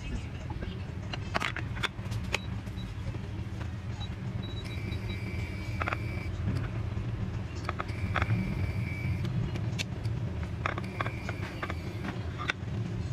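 A steady low kitchen hum, with a high whine that switches on and off for a second or so at a time, under light taps and paper rustling as hands press paper towels onto blocks of tofu on a plate.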